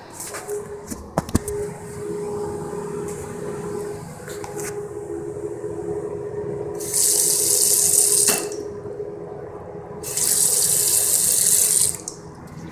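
Bathroom sink tap turned on twice, each time running for about two seconds as water splashes into the porcelain basin and down the drain. A steady hum sounds underneath, and a few sharp knocks come about a second in.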